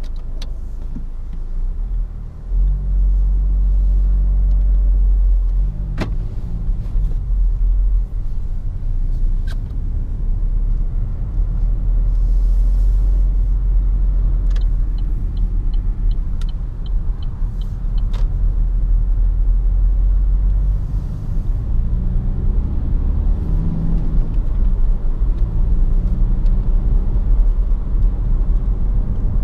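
Cabin sound of an Opel Insignia 2.0 CDTI's four-cylinder diesel on the move: a deep, steady rumble of engine and road, with the engine hum shifting in pitch a few times. A few sharp clicks, and a run of evenly spaced ticks about halfway through.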